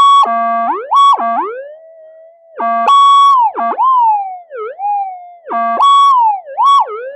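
Metal detector audio giving repeated loud target signals: steady multi-layered tones that bend into warbling glides up and down in pitch, four times over.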